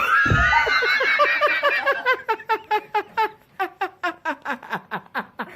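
A person laughing: a high-pitched squeal for about two seconds that breaks into rapid bursts of laughter, about five a second.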